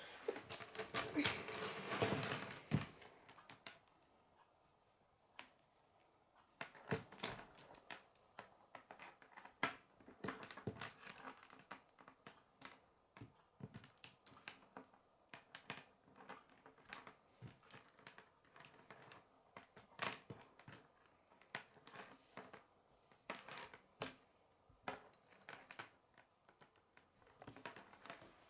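K'nex plastic rods and connectors being handled and snapped together: irregular sharp clicks, with a denser clatter and rustle of pieces in the first two seconds or so.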